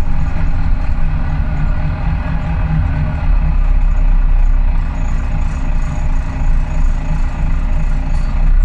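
Volvo B9TL double-decker bus's 9.4-litre six-cylinder diesel running as the bus drives, heard from inside on the upper deck: a steady drone with a deep rumble that grows heavier about three seconds in.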